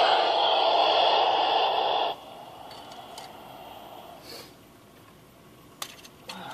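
Handheld 2-metre FM ham radio tuned to 145.8 MHz hissing with static, which cuts off suddenly about two seconds in. After that there are a few faint clicks and knocks from handling the radio and antenna.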